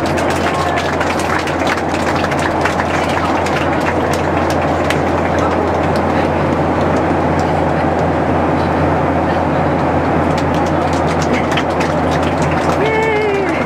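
Steady cabin noise of an airliner in flight, a constant low hum and rush. Scattered sharp clicks run through it, and a brief voice sounds near the end.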